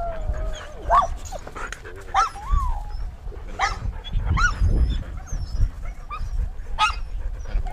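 Dogs yipping and whining in short calls that rise and fall in pitch, about five times, over a low rumble from the harness-mounted GoPro moving against the dog's fur.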